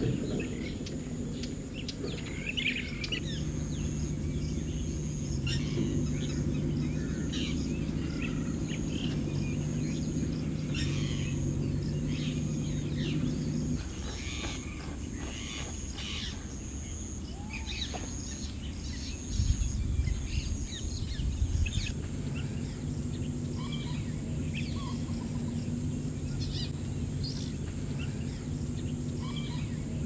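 Wild birds chirping and calling in short, scattered notes over a steady low hum and a high, even hiss. A brief low rumble comes about twenty seconds in.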